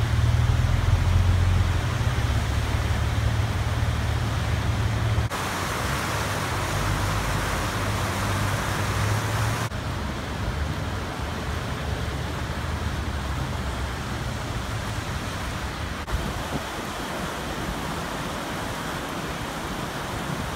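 Steady rush of fast, churning floodwater from the Truckee River running at flood stage, with a deep rumble underneath that is heaviest in the first few seconds. The sound shifts abruptly at about five and ten seconds.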